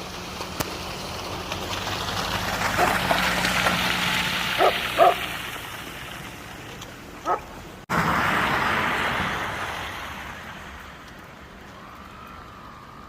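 A dog barking four times, single barks with a quick double in the middle, over a rushing noise that swells and fades. About two-thirds of the way in the sound cuts off abruptly, and another rush follows and dies away.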